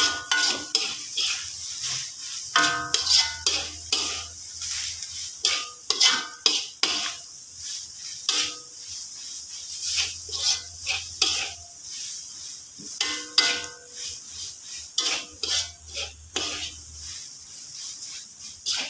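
A metal spatula stirring and scraping grated coconut around a steel wok, in many irregular scrapes and clinks over a steady sizzle from the frying coconut as it is toasted into serundeng.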